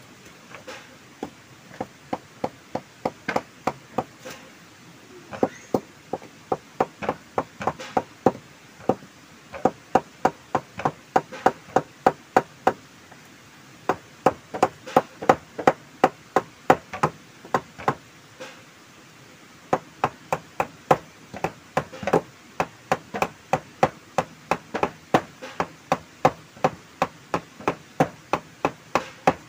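A hand tool chopping at an upright wooden pole: quick, even strikes about three a second, in runs broken by short pauses.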